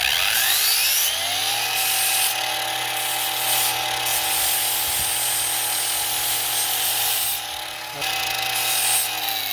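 Handheld electric grinder spinning up, running steadily while grinding a stainless steel clamp strip into a lock pick, and winding down at the end.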